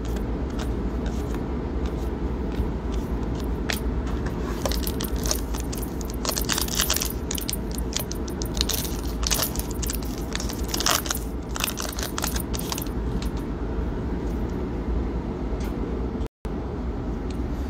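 Plastic trading-card pack wrapper crinkling and crackling as it is torn open by hand, the crackles thickest in the middle stretch, with cards sliding against each other, over a steady low hum. The sound cuts out completely for an instant near the end.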